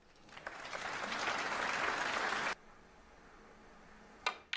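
Audience applauding for about two and a half seconds, cutting off abruptly. Near the end, one sharp click of a snooker cue tip striking the cue ball.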